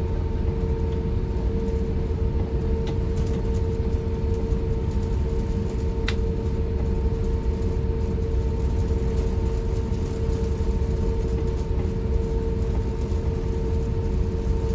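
Steady cabin noise inside an Airbus A350-1000 airliner: a low rumble with a constant hum and a higher whine that hold level throughout. A single short click sounds about six seconds in.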